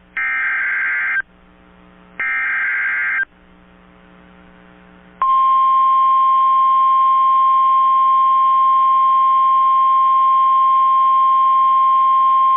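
Emergency Alert System SAME header data bursts: the last two of three screeching digital bursts, each about a second long with a second's gap. These are followed about five seconds in by the steady 1050 Hz NOAA Weather Radio warning alarm tone, which keeps sounding. The header and alarm tone signal the start of a new warning broadcast.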